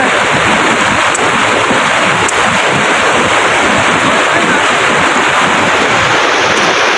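Loud, steady rushing noise that holds evenly throughout.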